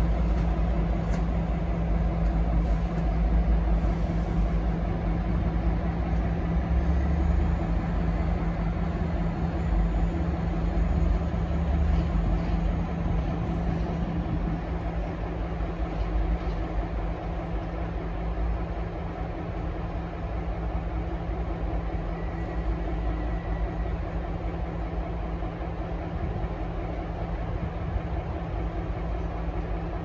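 Diesel locomotive engines giving a steady low rumble with a hum. About halfway through the hum drops away and the rumble eases a little.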